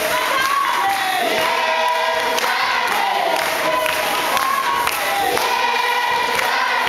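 A church choir singing together with many voices, the sung melody running in phrases throughout, with crowd noise underneath.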